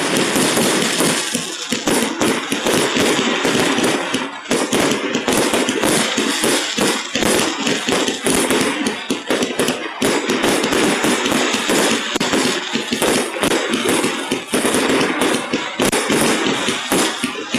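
Fireworks display: a dense, unbroken barrage of shell bursts and crackle, squashed by a phone's audio compression.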